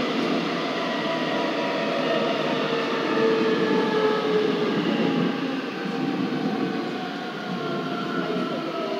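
Busan Metro Line 2 subway train heard from inside the car. The wheels rumble on the rails under a whine from the electric traction motors, and the whine falls steadily in pitch as the train brakes into a station.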